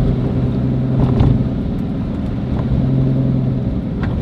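Chevrolet Corvette's V8 engine running steadily at low speed, with a brief rumble about a second in. The engine note drops away shortly before the end.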